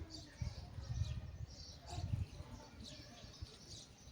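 Small birds chirping repeatedly in short high calls, with low rumbling thumps about half a second in and again around two seconds in.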